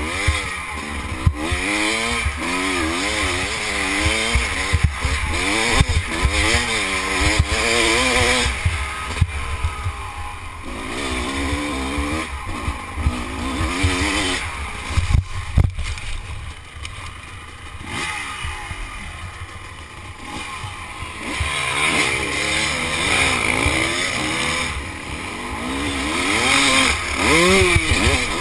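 Off-road motorcycle engine revving up and down over and over, heard from a helmet camera, with wind noise and sharp knocks from the rough ground.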